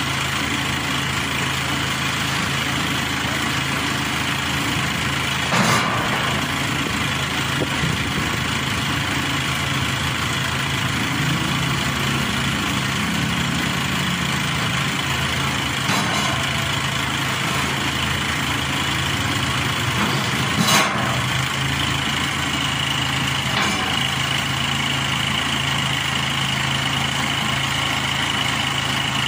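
Maxxi Bimo 102 combine harvester's engine idling steadily, with a few metal clanks as steel loading ramps are set against the truck bed, the loudest about six seconds in and again about twenty-one seconds in.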